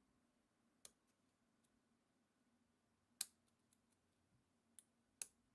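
Sparse, faint clicks of a lock pick working the pins inside a brass padlock, about four sharp ones, the loudest about three seconds in.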